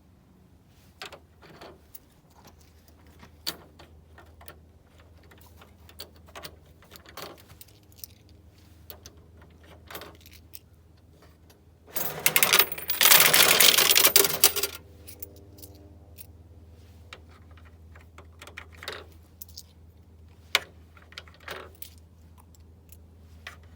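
Handling noises around a vending machine: scattered clicks and light knocks over a steady low hum, with one loud rustling burst lasting nearly three seconds about halfway through.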